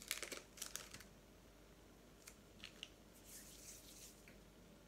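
Faint handling noises of hands working plasticine on a tabletop. A quick run of small rustling clicks comes in the first second, a few soft ticks follow, and a brief light rustle comes near the end.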